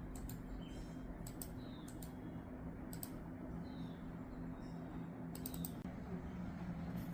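Sharp clicks, single and in small clusters, at an uneven pace over a steady low hum.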